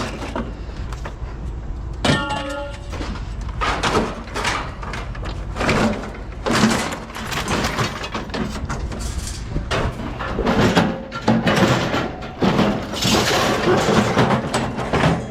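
Scrap metal being handled: repeated clanks, knocks and rattles of metal parts, with a short ringing tone about two seconds in.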